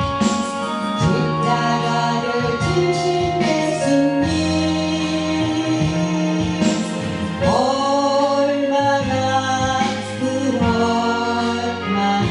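Christian worship song (praise song) playing: singing over instrumental accompaniment, with long held notes.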